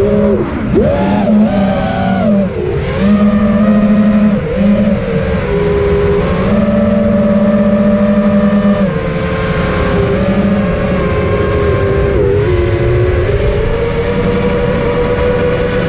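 Electric motors and propellers of a 5-inch FPV freestyle quadcopter, recorded by its onboard camera: a whine whose pitch rises and falls with the throttle, dipping sharply twice as throttle is cut and punched again, over rushing wind and prop wash.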